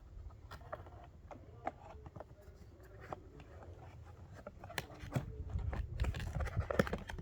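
Scattered clicks, small knocks and scrapes of screwdrivers being handled and worked in and out of their box, getting busier near the end.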